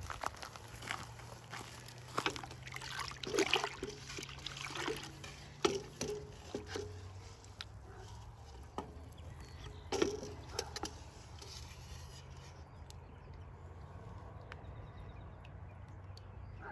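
Flat wooden paddle stirring corn kernels in a metal pot of wood-ash water: sloshing and scattered knocks of the paddle against the pot. It grows quieter for the last few seconds.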